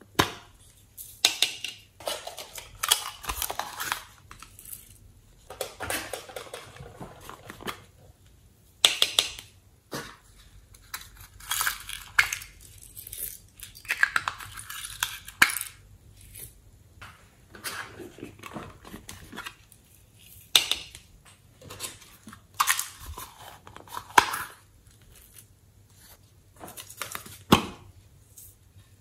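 Small plastic novelty containers being clicked open and handled, with glitter and sequins shaken and tapped out of them into a glass bowl: an irregular string of plastic clicks, knocks and gritty rustling.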